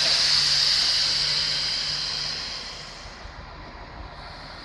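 Compressed air hissing out of a stopped passenger train's pneumatic system. The hiss is loudest at the start and fades away about three seconds in, over a faint low hum.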